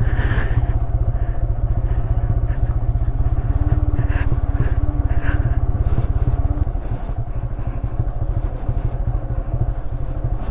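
Motorcycle engine running steadily while being ridden, with a continuous low rumble.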